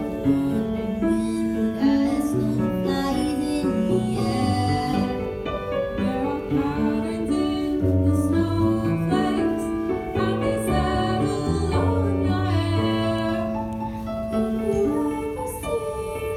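High school choir singing a slow song with piano accompaniment, sustained notes moving from chord to chord.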